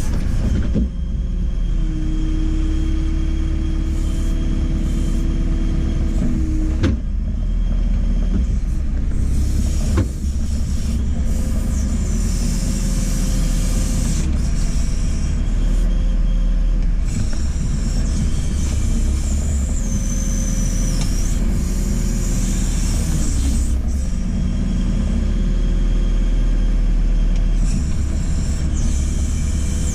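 Diesel engine of a JCB 4CX backhoe loader running steadily as the machine works, with a steady whine for a few seconds near the start and a couple of sharp knocks, about seven and ten seconds in.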